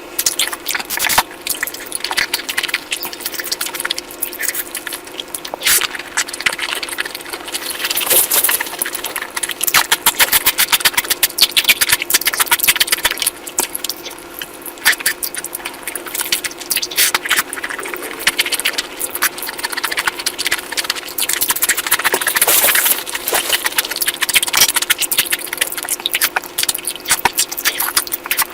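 Close-miked eating of curry: dense wet chewing, lip-smacking and squelching, with many small clicks and crackles that grow louder in stretches.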